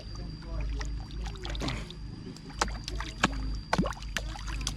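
Sharp splashes and slaps at the water surface, three loudest in the second half, as fish come up to the surface at the lake's edge.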